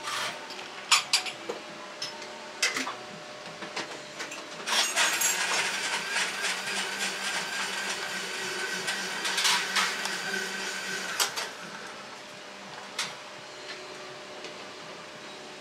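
A few sharp clinks of a metal spoon against a tall glass of ice cream soda. From about five seconds in, a machine whirs steadily for about seven seconds and then stops.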